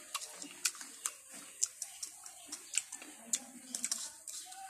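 Close-up chewing of crisp unripe green mango, with irregular sharp crunching clicks, one or two a second.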